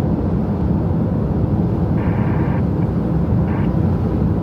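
Steady low rumble of road and engine noise inside a moving car. Two brief higher sounds cut through, about two seconds in and again a second and a half later.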